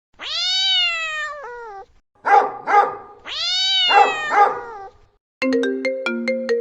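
Cat ringtone: a cat's long meow, falling in pitch, followed by two short sharp calls, all played twice. About five seconds in, a melody of plucked electronic notes starts.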